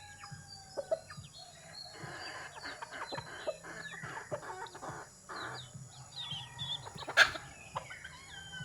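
Young chickens peeping, many short high falling calls overlapping, with a few scratchy bursts and one sharp knock about seven seconds in.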